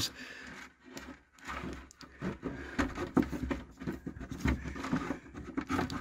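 Switch panel and its wiring scraping and tapping against the edges of a cutout in a wooden wall as it is worked into place, in irregular soft knocks and rubs.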